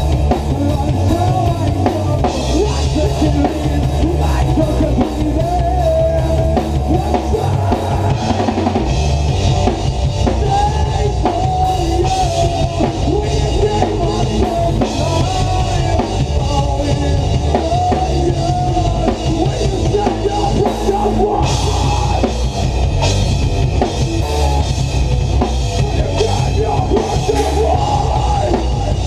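Rock band playing live in a small rehearsal room: drum kit with bass drum and cymbals, electric guitar and bass guitar, played steadily and loudly without a break.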